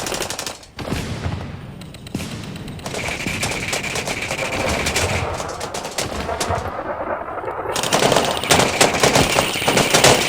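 Airsoft guns firing in rapid bursts, a dense clatter of shots that grows heavier and louder in the last couple of seconds.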